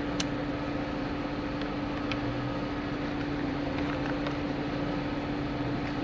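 A steady mechanical hum holding one constant low tone, with a sharp click just after the start and a few faint ticks later.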